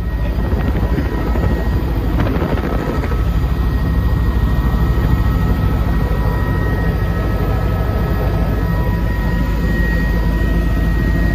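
Helicopter running: a steady, loud rotor and engine noise with a fast low pulsing and a few faint steady whining tones above it.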